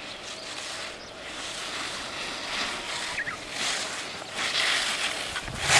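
Skis scraping and hissing on snow through slalom turns, swelling with each turn about once a second and growing louder towards the end.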